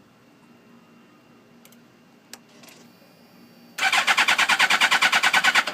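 The electric starter of a 2006 Suzuki GSX-R1000 cranks its inline-four engine in a fast, even chug for about two seconds and then stops sharply, with no firing. The bike cranks but won't start, which the owner thinks might be a fuel pressure problem.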